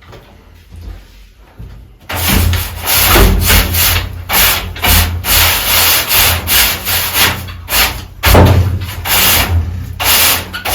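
Rough scraping strokes on wood, loud and uneven, starting about two seconds in: wooden boxes being scraped clean.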